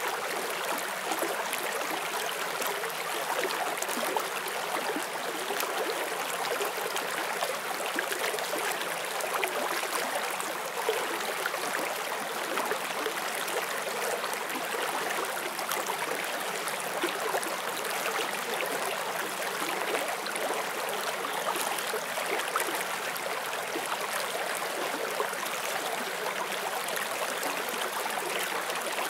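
Forest stream flowing steadily over rocks, a continuous gentle rushing and babbling of water.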